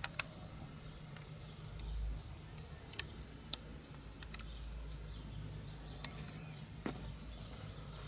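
A handful of short, sharp clicks at irregular intervals, two together at the start and the rest spread over the following seven seconds, over a faint steady low hum.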